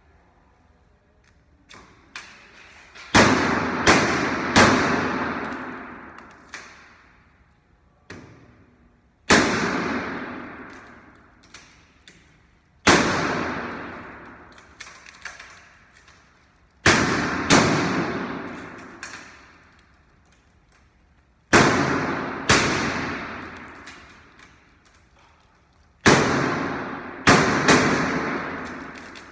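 Washing machine banging hard again and again, a loud crash every few seconds and sometimes two or three close together, each ringing away over about two seconds.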